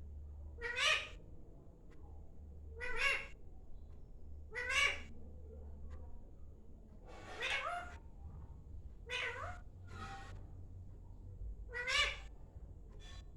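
Parrot giving a string of cat-like meow calls, about seven of them, each short and rising in pitch, one every second or two.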